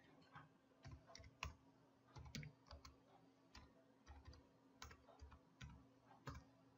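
Faint, irregular clicks of a computer keyboard and mouse: short single keystrokes and button presses, spaced unevenly, as numbers are typed into fields.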